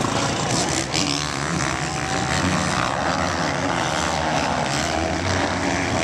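Motocross dirt bikes racing on the track, several engines running hard and revving up and down.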